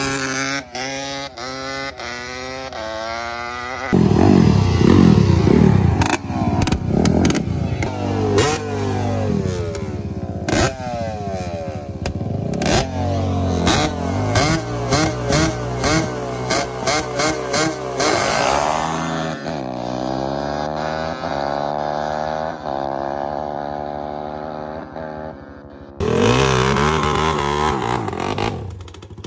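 Sport quad engines fitted with drag pipes revving, then launching and accelerating hard side by side. The pitch climbs and drops at each gear shift, with many sharp cracks during the run. A second loud launch comes near the end.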